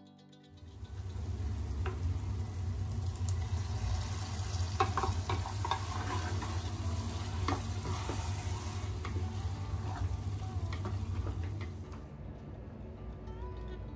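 A wooden spatula stirs onion-and-tomato masala frying in a steel pot: sizzling, with scattered scrapes and knocks of the spatula against the pot and a steady low rumble underneath. It stops about twelve seconds in.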